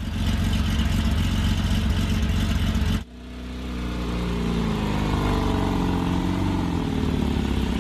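Classic car engines running: a steady engine sound, then after an abrupt cut about three seconds in, another engine whose pitch drifts gently up and down as it is revved lightly.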